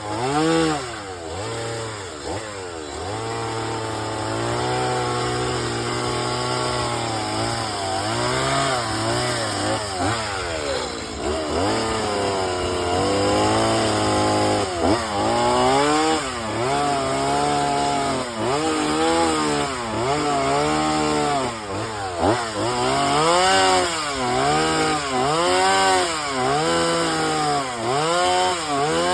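Chainsaw carving wood, its engine revving up and down again and again as it cuts. The pitch holds fairly steady early on, then rises and falls about once a second through the second half.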